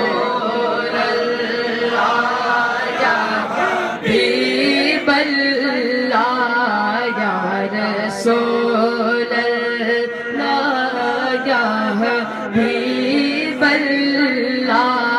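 A man singing a naat (Urdu devotional song) solo into a microphone, in long, wavering, ornamented held lines with no break.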